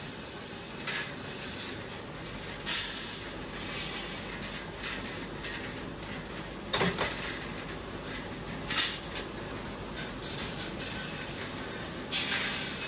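Rim-making machinery running with a steady drone, broken several times by short hissing bursts, and one louder clank about seven seconds in as the coiled rim strip is worked.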